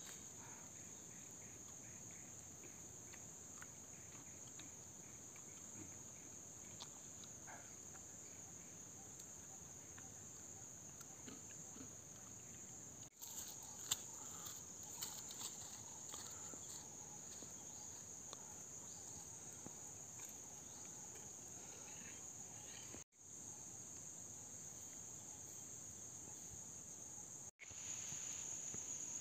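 Steady, faint, high-pitched insect chorus, with a sharp click about halfway through. The chorus cuts out briefly three times and comes back louder near the end.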